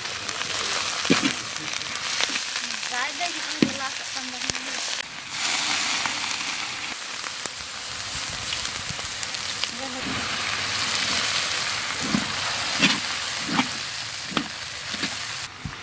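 Sliced onions and green chillies sizzling in hot oil in a large iron kadai, with occasional scrapes and knocks of a flat metal spatula stirring them.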